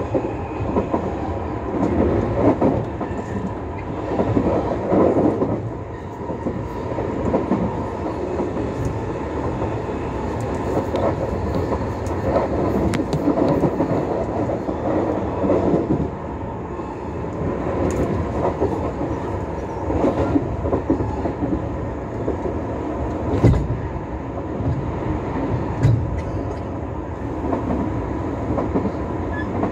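Tobu Skytree Line commuter train running at speed, heard from inside the carriage: a steady rumble of wheels on rails with louder knocks now and then, and two heavier low thumps about three-quarters of the way through.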